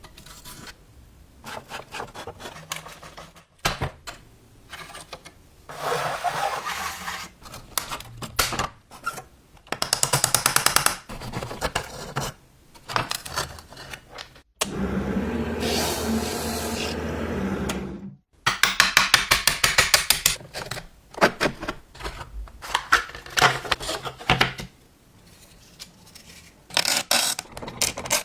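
Workshop tool sounds in quick edited succession: scraping and rubbing, sharp clicks, bursts of rapid even ticking, and about three and a half seconds of a small power tool running from about a third of the way in.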